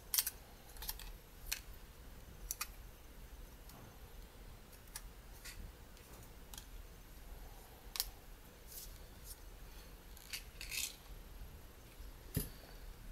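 Irregular small clicks and taps of a Panasonic DMC-TS30 compact camera's plastic body and parts being handled and turned over during disassembly, with a duller knock near the end.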